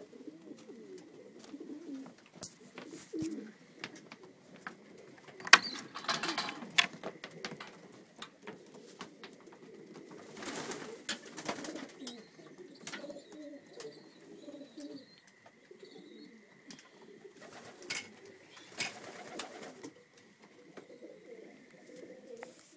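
Racing pigeons cooing continually in their loft, with several short, loud bursts of flapping and clatter as birds move about.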